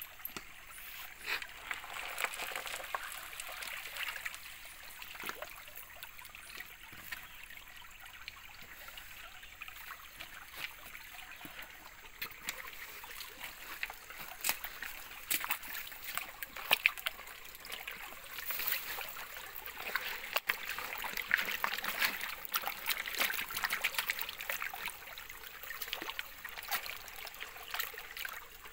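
Water splashing and sloshing as a rubber sluice mat is rinsed and worked over a gold pan in shallow creek water. There are many small sharp splashes over a steady trickle of flowing water.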